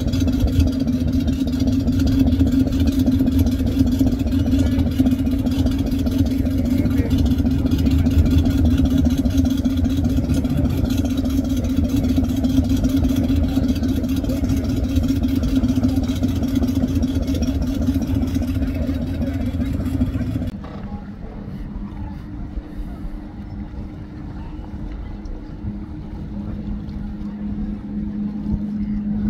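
Motorboat engine running steadily at low speed. About two-thirds of the way in, the sound cuts abruptly to a quieter, duller engine drone.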